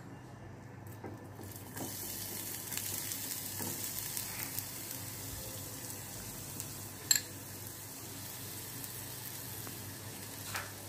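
Finely chopped onion hitting hot oil in a nonstick kadai and sizzling steadily from about two seconds in. A sharp clink a little past halfway and a softer one near the end.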